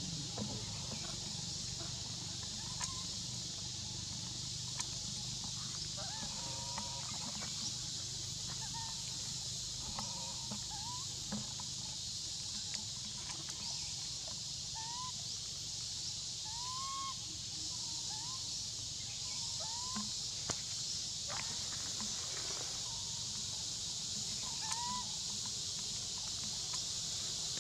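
A steady high-pitched insect drone from the forest, with short upturned chirping calls repeating every second or two.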